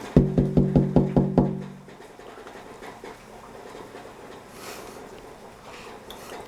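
A quick run of seven hard knocks, about five a second, on something hollow that rings with a low steady tone, then dies away within half a second.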